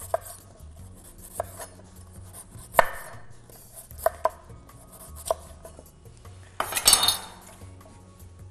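Large kitchen knife slicing the skin off a kohlrabi and knocking down onto a wooden cutting board, single sharp knocks every second or so. About seven seconds in comes a longer scraping rustle lasting under a second.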